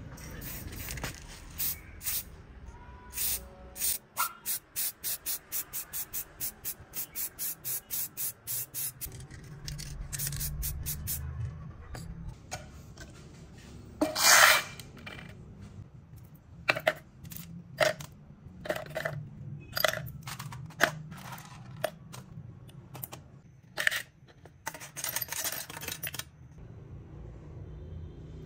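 Sharp metallic clicks and clinks of small steel drill-gearbox parts being handled and set down: a fast regular run of about three or four clicks a second for several seconds, one louder clatter about halfway through, then scattered single clinks.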